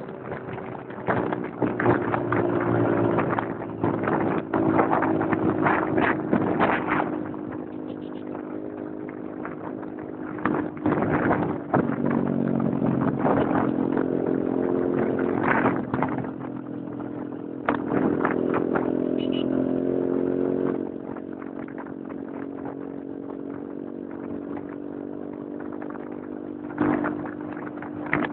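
Motorcycle engine running at road speed, its note rising and falling as the throttle opens and closes. It grows louder in several stretches and runs quieter for a while about three-quarters of the way through. Wind buffets the microphone throughout.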